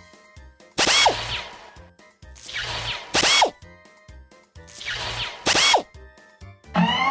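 Cartoon machine sound effects for robot arms and power tools: three short bursts of drill-like noise, each with a falling tone, about two seconds apart, over background music with a steady beat.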